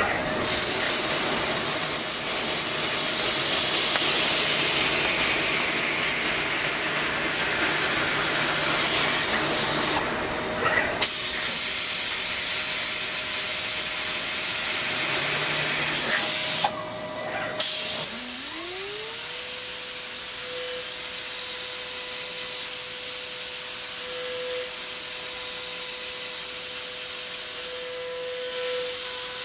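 Mazak Quick Turn QT250MSY CNC turning center running, with a loud steady hiss like coolant spraying in the machining area that breaks off briefly twice. About two-thirds of the way through, a motor whine rises in pitch and then holds steady as a spindle comes up to speed.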